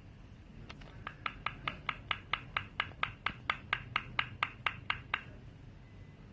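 A pet parrot giving a rapid series of about twenty short, identical calls, four to five a second, that stop about five seconds in.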